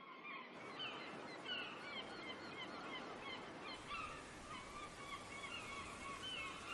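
A flock of birds calling, many short overlapping cries one after another, over a steady rush of river water.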